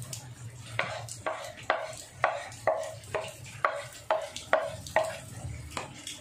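About ten sharp knocks of a kitchen utensil in a steady rhythm, roughly two a second, each with a brief ring, starting about a second in and stopping near the end.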